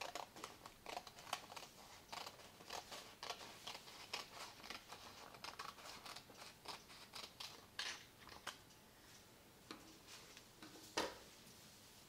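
Scissors cutting through a sheet of paper in a run of short, crisp snips, about two to three a second, that stop after about eight and a half seconds. A single louder knock comes near the end.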